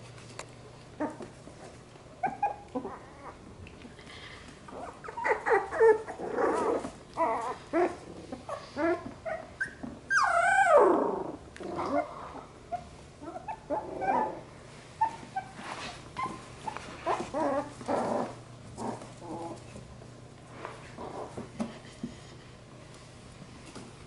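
Young labradoodle puppies at play, giving many short calls, with one longer call sliding down in pitch about ten seconds in, the loudest.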